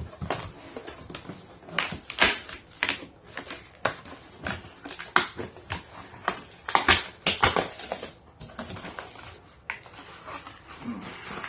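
An aged cardboard box being pried open by hand: irregular scraping, crinkling and tearing of old cardboard and tape, with the sharpest tears about two seconds in and about seven seconds in.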